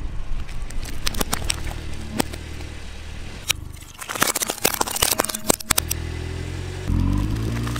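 A car tyre rolling slowly over small plastic cups on asphalt, crushing them with many sharp cracks and snaps over a low engine hum. A second run of denser cracking follows a cut, and a steady low drone sets in near the end.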